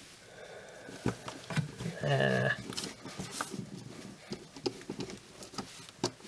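Scattered small clicks and taps of hand-screwing parts together, with a short pitched squeak about two seconds in.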